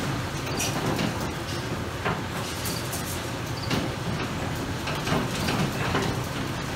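Many weaned piglets' hooves clattering on slatted barn flooring as the group trots through: a continuous rattle of quick small steps, with a steady low hum underneath.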